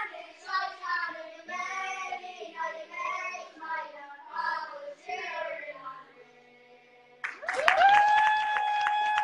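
Boys' choir singing, the song ending about six seconds in. Then clapping breaks out, with one long held 'woo' cheer that rises at the start and drops off at the end.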